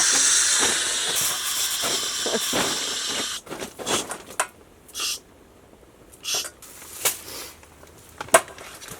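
Food sizzling in a hot pan with sesame oil, a steady hiss that fades and cuts off suddenly about a third of the way in. After that come a few scattered clicks and taps.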